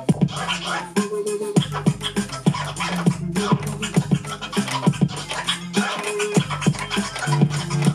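DJ scratching: a vinyl record pushed back and forth by hand on a turntable, cut in and out with the mixer's crossfader, over a drum beat. Picked up by a camera's built-in microphone.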